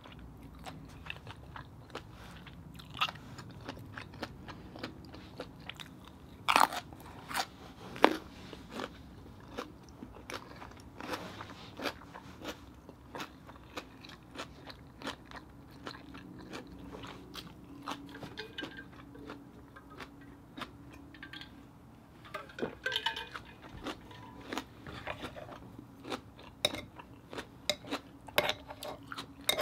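A person chewing a mouthful of baked oyster topped with fish roe and green onion: many small sharp clicks, with two louder ones about six and a half and eight seconds in.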